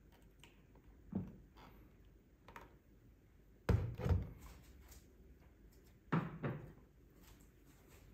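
A series of dull knocks and thuds from kitchenware being handled on a countertop: a single knock about a second in, a heavier double thud just before the middle, and another pair of knocks about six seconds in.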